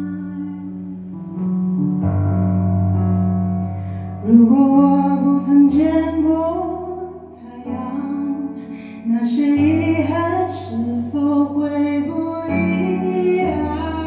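A woman singing a slow song over her own Nord Electro 4 stage keyboard, which holds sustained chords with a steady bass. Her voice comes in strongly about four seconds in.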